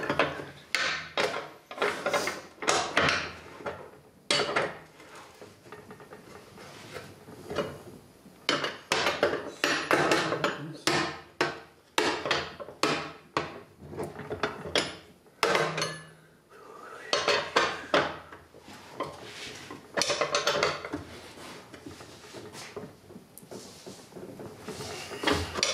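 Open-end wrench clinking on the nut and bolt of a snowblower auger-shaft bearing flange as it is tightened: irregular metal clicks and knocks in runs, with quieter pauses between them.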